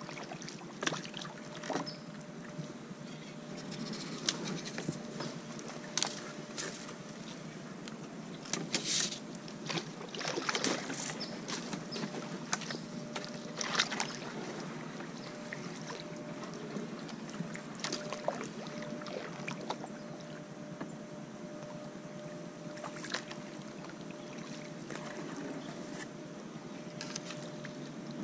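A kayak being paddled through flooded brush: paddle strokes dipping and dripping in shallow water, with irregular knocks and scrapes as the paddle and hull brush against branches and debris.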